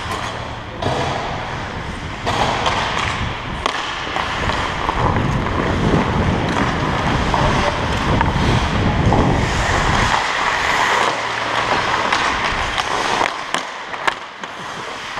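Ice hockey skates scraping and carving on rink ice, heard from a helmet-mounted camera while skating, with wind buffeting the microphone and heaviest in the middle. A few short knocks, likely sticks or puck, are scattered through it.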